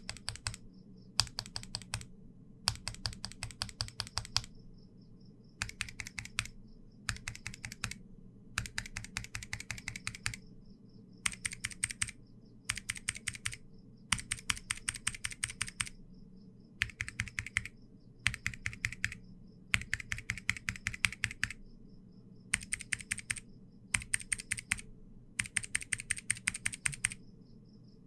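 Typing on mechanical keyboard switches in short bursts of rapid keystroke clicks with brief pauses between them. Several Gateron switches are typed on in turn: Cap Yellow, then Milky Yellow, Milky Green, Milky Brown and the clicky Milky Blue.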